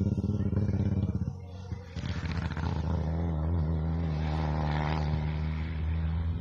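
Rally car engine running loud with a fast pulsing note, dropping away about a second in. A steadier engine hum follows from about two seconds in.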